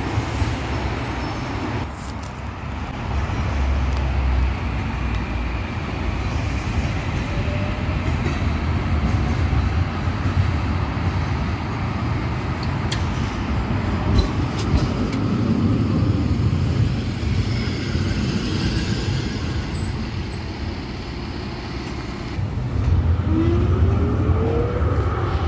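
Series 5000 tram running along its track over steady road-traffic rumble; it grows louder as it approaches and passes close near the end, with a rising whine.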